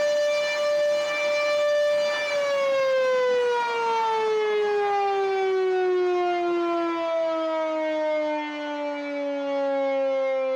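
Air raid siren holding a steady wail, then winding down from about two seconds in, its pitch falling slowly and smoothly.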